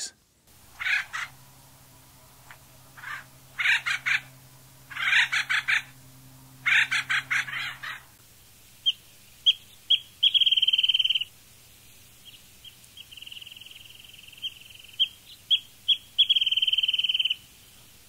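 Harsh, raspy bird calls in short clusters, then a wrentit singing: a few clear notes that speed up into a rapid trill, with the rhythm of a bouncing ping-pong ball, given twice.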